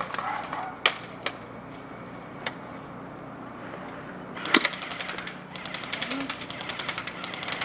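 Airsoft guns firing: a few single shots in the first couple of seconds, then rapid automatic fire from about halfway on.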